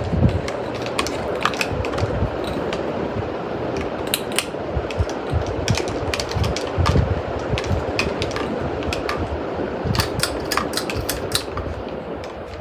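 52-inch Hampton Bay Carriage House ceiling fan running, its downdraft buffeting the microphone: a steady rush of air with irregular low wind thumps and scattered sharp clicks. The sound eases off a little near the end.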